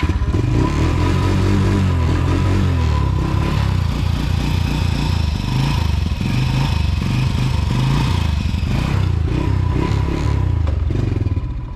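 Honda TRX90 ATV's small single-cylinder four-stroke engine running under way, revving up and down. The engine is cold, not yet warmed up.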